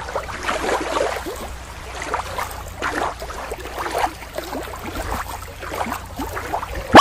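Shallow lake water lapping and sloshing against a rocky shore in small irregular splashes, over a low steady rumble. Right at the end a short loud rising swoop cuts in.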